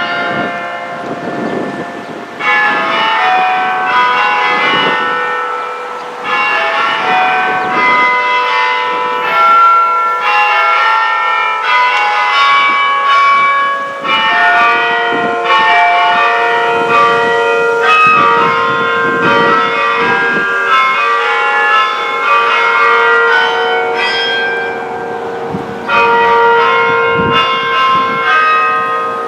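Bell-tower bells ringing: strikes at several different pitches, a new one every second or two, each ringing on into the next, with a lower tone held under them from about halfway.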